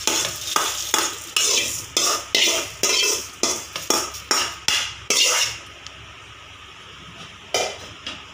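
A steel spoon scraping dry-roasted whole spices out of a metal pan into a steel mixer jar: quick repeated scrapes and knocks, about two or three a second, stopping after about five seconds. A single knock comes near the end.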